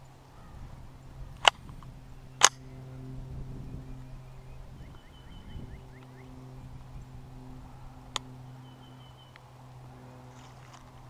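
Two sharp, loud cracks about a second apart, then a fainter crack some six seconds later, over a steady low hum, with a bird's short repeated chirps in between.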